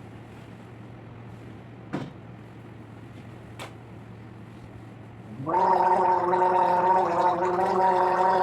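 A low steady hum with two faint clicks, then about five and a half seconds in a loud, held voice-like sound on one steady pitch begins and carries on.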